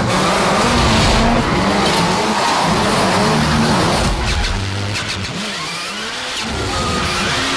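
Ford Fiesta rally car's turbocharged four-cylinder engine revving hard and changing pitch again and again as the car drifts, with its tyres sliding. Sharp pops come in the second half.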